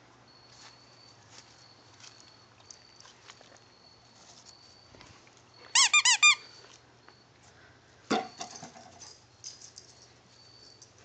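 Dog's squeaky toy bone squeaking four times in quick succession as it is bitten, each squeak a short rise-and-fall in pitch. About two seconds later comes a sharp knock followed by a short, fainter tone.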